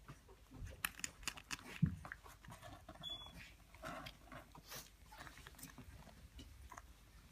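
Newborn Bedlington terrier puppies suckling from their mother: irregular small wet clicks and smacks, with a soft thump about two seconds in.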